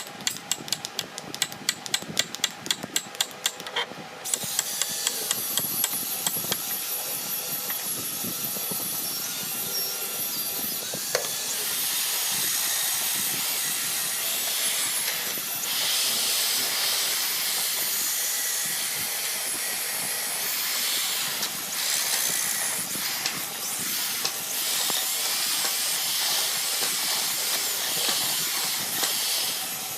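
Sharp, evenly spaced taps, about three a second, then from about four seconds in a woodworking power tool runs with a steady hiss.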